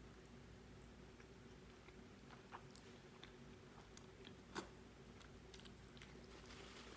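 Faint chewing and mouth sounds of a person eating, with scattered soft clicks and one sharper click about four and a half seconds in.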